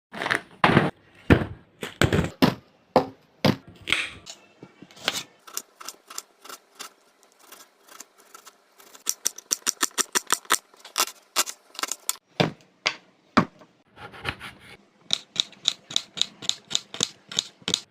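Knife chopping on a cutting board: heavier knocks at first, then fast, even runs of sharp strokes, about four to five a second, in two spells.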